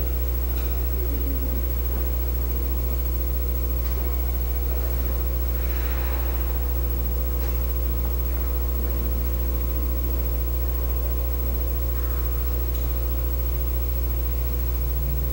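Steady electrical mains hum with a buzz of higher overtones and a hiss, unchanging throughout; a faint brief sound rises above it about six seconds in.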